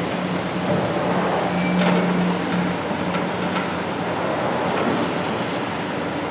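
Heavy construction machinery running steadily, a low engine hum over a general noise, with a few faint knocks.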